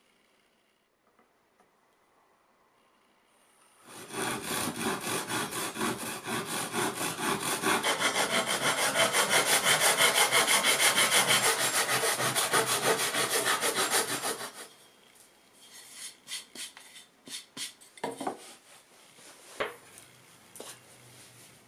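Japanese hand saw cutting across a 14 mm cedar board, with fast, even back-and-forth strokes at about two to three a second. The strokes start about four seconds in and grow louder, then stop abruptly about ten seconds later as the cut goes through. A few lighter, scattered strokes and ticks follow.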